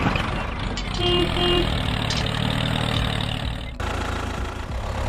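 Tractor engine running steadily, with two short horn toots about a second in; the engine sound changes abruptly about four seconds in.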